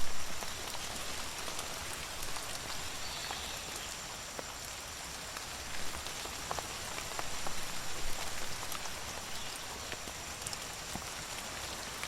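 Steady rain falling, with scattered individual drops ticking sharply on a hard surface. The rain swells slightly a couple of times in the middle.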